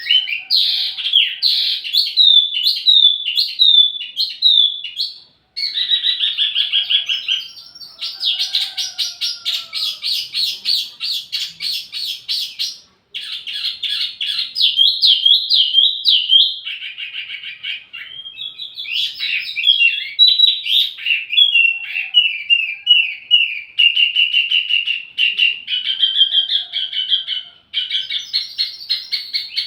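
A small 'wambi mini' songbird singing a long, fast run of high, bright chirps and trills in quick succession, with a few short breaks between phrases. This is the kind of song played as a lure and as master song for training tledekan birds.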